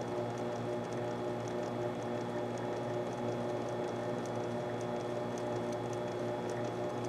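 Steady electrical hum with a faint, regular high ticking.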